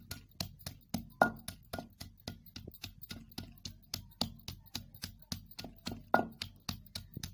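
Pestle pounding in a kundi mortar, crushing onion and green chili into a coarse chutney paste, in quick even strikes about five a second, with two harder strikes about a second in and near the end.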